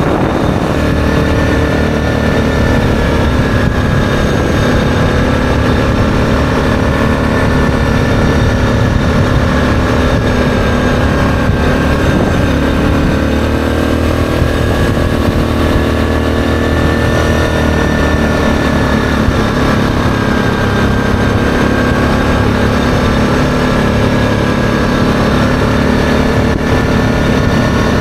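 ATV engine running steadily while riding at road speed, its pitch sagging and rising a little now and then as the speed changes.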